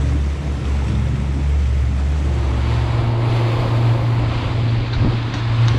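60 hp outboard motor running as the boat gets under way, its steady low hum stepping up to a higher note about halfway through as the throttle opens. Wind on the microphone and water rushing past the hull run under it.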